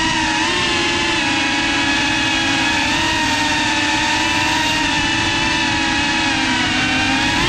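FPV racing drone's brushless motors and propellers whining, picked up by the onboard GoPro during flight. The whine holds steady, wavering slightly in pitch with the throttle and dipping a little near the end, over a rough low rumble.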